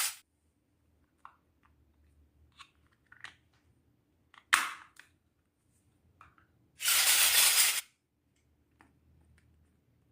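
Small miniature toy kitchen pieces tapping and clinking as they are handled, with a sharp click about four and a half seconds in. A loud, second-long rush of noise comes about seven seconds in.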